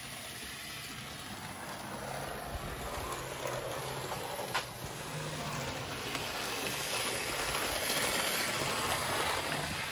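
Rivarossi 0-8-0 model steam locomotive running on the layout track, its motor and gearing turning and its wheels rolling on the rails, now running freely after being freed from seizing. It grows louder toward the end as it passes close by, with one short click about four and a half seconds in.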